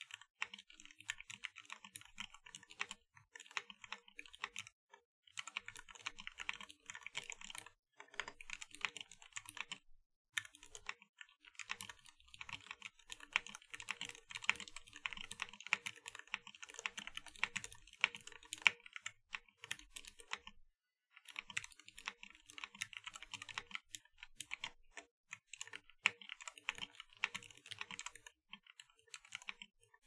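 Fast typing on a 60% mechanical keyboard with lubed Gateron Yellow linear switches, PBT keycaps and a foam layer in the Tofu60 case: a dense run of keystrokes broken by brief pauses every few seconds.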